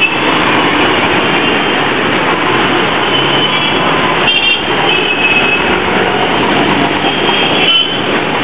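Dense city street traffic of auto-rickshaws, motorcycles and buses running past, with several short horn beeps.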